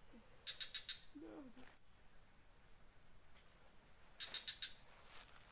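Steady high-pitched drone of insects. Two short pulsed chirps of about five quick notes each sound over it, about half a second in and again about four seconds in.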